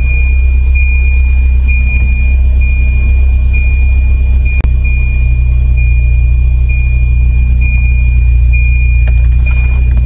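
Volvo B230F 2.3-litre four-cylinder engine idling steadily, with a steady high-pitched tone over it and one sharp knock about halfway through.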